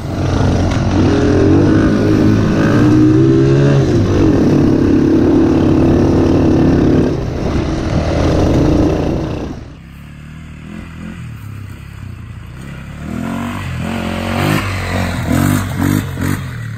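Small ATV engines revving and pulling over rough ground, rising and falling in pitch. The engine is close and loud for the first ten seconds or so, then the level drops suddenly to a more distant ATV engine revving up and down near the end.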